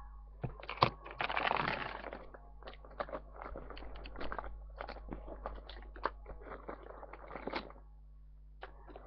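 Makeup brushes and cases being rummaged through and handled: a scattered run of small clicks and knocks, with a louder rustling scrape about a second in that lasts about a second.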